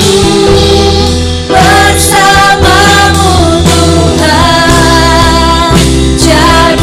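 Christian worship song: singing over a sustained bass and instrumental accompaniment, in sung phrases with short breaks between them.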